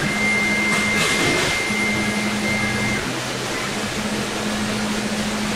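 SmartShop I CNC router running, its gantry and spindle head traversing over the table: a steady machine hiss with a high whine for the first three seconds and low motor hums that start and stop as the axes move.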